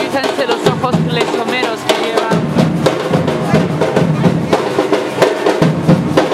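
Festive dance music driven by drums: bass drum and snare beating a steady rhythm, with other instruments playing over it.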